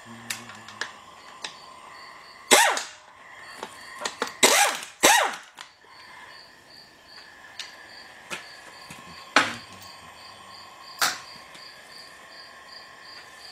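Pneumatic impact wrench fired in five short bursts, running the bolts out of the front hub on a Dana 30 axle. A cricket chirps steadily in the background.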